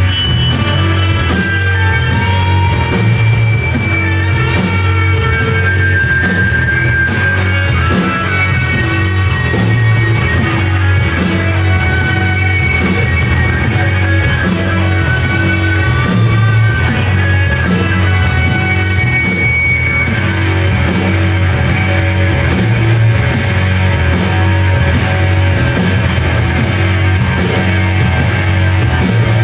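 Live rock band playing loud and steady: heavy bass and drums with a melodic guitar line, turning brighter and denser about two-thirds of the way through.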